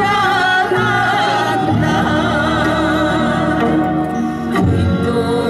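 Korean traditional music with singing: a wavering melodic line over steadily held low notes.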